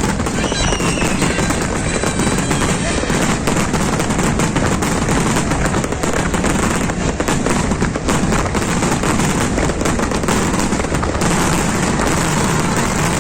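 Large fireworks display going off continuously: a dense, unbroken run of rapid bangs and crackles.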